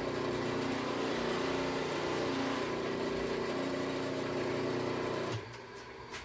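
Electric buffer motor running while a freshly plated part is buffed, a steady hum whose pitch shifts a little, switched off and stopping abruptly about five seconds in.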